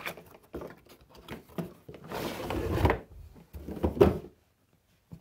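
A hard plastic tool carrying case being lifted out of its cardboard box and turned over by hand: scattered clicks, a sliding scrape about two seconds in, and a knock near four seconds.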